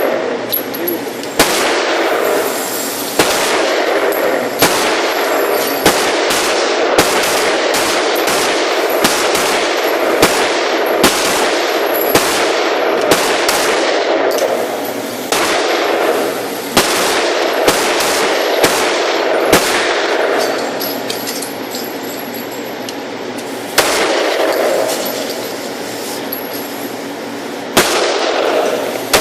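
Pistol shots at a range, about twenty of them fired one after another at a steady pace, each a sharp crack, over a steady rushing noise.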